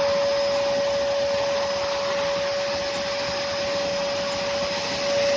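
Hoover Commercial PortaPower CH30000 canister vacuum running steadily: a constant whine over the rush of air.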